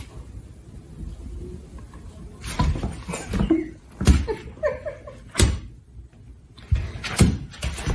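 A series of about six sharp knocks and thumps over a few seconds, with short pitched sounds in among them.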